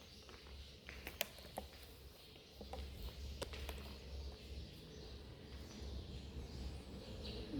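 Faint scattered clicks and ticks over a low rumble that rises about a third of the way in.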